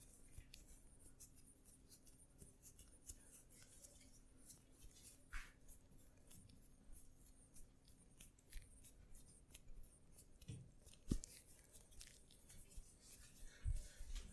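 Faint rubbing and light crackling clicks of hands working over skin and hair during a massage, with a couple of soft thumps in the second half.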